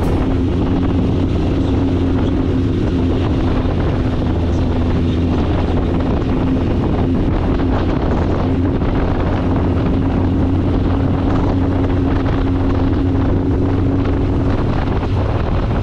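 Motorcycle engine running steadily at low road speed, with wind buffeting the microphone.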